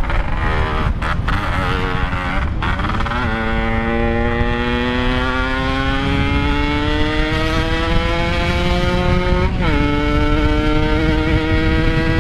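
Yamaha RX-King two-stroke motorcycle engine through a Packing Power exhaust, accelerating through the gears. There are quick shifts in the first three seconds, then a long pull with steadily rising pitch, a drop at a gear change about nine and a half seconds in, and the pitch climbing again.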